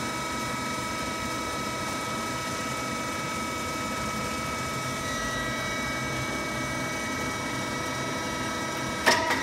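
Machinery running steadily, a mechanical hum with several constant whining tones. A sharp knock sounds near the end.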